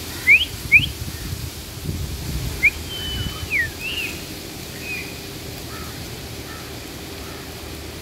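Two sharp rising whistles in quick succession, then a shorter one and a longer high whistle that falls away in pitch, with fainter whistles trailing off after.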